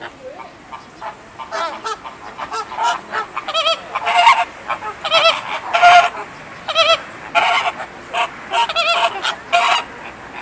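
American flamingos honking: a string of short calls in quick succession, starting about a second and a half in and loudest around the middle.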